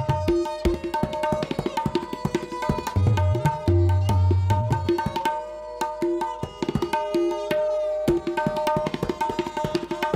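Tabla solo: fast, dense strokes on the tuned right-hand dayan ringing at a steady pitch, mixed with deep bass strokes on the left-hand bayan that come in strongest about three to five seconds in.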